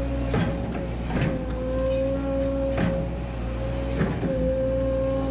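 Volvo EC140 hydraulic excavator running with a steady engine and hydraulic whine while its bucket digs into the soil, with four short knocks and clunks as it works.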